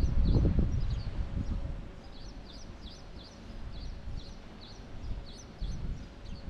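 A bird chirping over and over, short high chirps about two or three a second, over a low rumble that is strongest in the first second or so.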